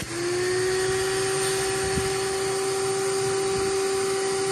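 Shop vac motor running steadily with its hose inlet sealed off by a vacuum gauge, a constant whine with a clear tone over the airflow noise as the vacuum pulls against the closed end. The gauge reads almost 50 inches of water lift.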